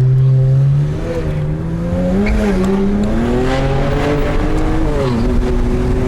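Car engine being driven hard, with its pitch holding, then easing off about a second in. It climbs slowly for several seconds and dips again near the end.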